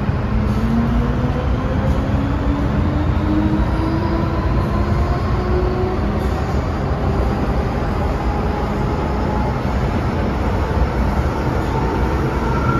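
MTR Kwun Tong line M-train (car B460) heard from inside the car as it pulls away, over a steady rumble of wheels on track. Its traction motors give a strong whine, the 'ghost howl', that rises in pitch over the first half and then levels off. The uploader says the whine appeared after the car's overhaul.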